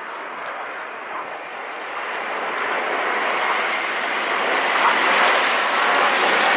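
Jet noise from a British Airways Airbus A380 flying in formation with the Red Arrows' BAE Hawk jets, an even rushing roar that grows steadily louder as the formation approaches.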